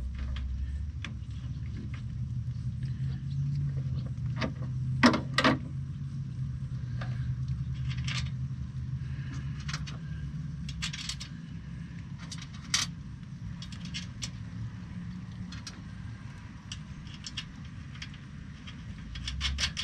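Scattered light metallic clinks and taps of bolts, washers and a steel mounting bracket being handled while a truck intercooler is bolted in by hand, over a steady low hum.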